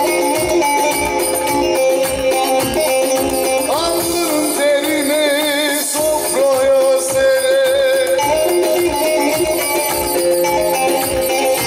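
Turkish folk music from the Teke region played live on bağlama (long-necked saz) with an electronic keyboard, over a steady drum beat.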